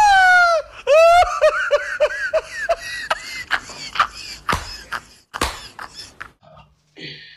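A man laughing hard. It opens with a high-pitched shriek, then breaks into a quick run of 'ha-ha-ha' at about four a second that falls in pitch. It trails off into fainter, scattered laughs.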